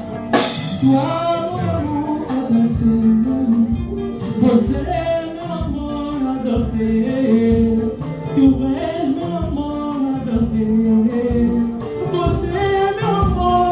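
Male voice singing a slow song in long held notes, accompanied by acoustic guitars, amplified through a PA system.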